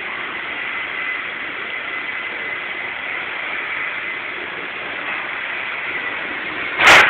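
Small battery-powered toy RC helicopter in flight: its electric motor and spinning rotors make a steady whirring hiss with a thin, high, constant whine. Near the end comes one loud, sharp knock.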